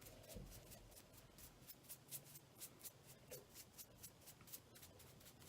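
Near silence with faint, quick, light strokes of a paintbrush on a small unfinished wooden knob.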